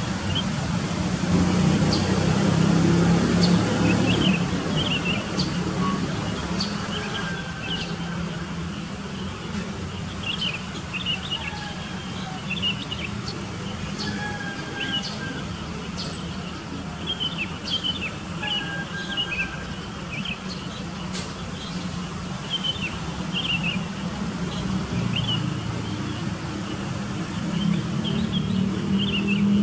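Birds chirping: many short, high calls with a few clear whistled notes, over a low rumble of distant road traffic that is louder in the first few seconds and again near the end.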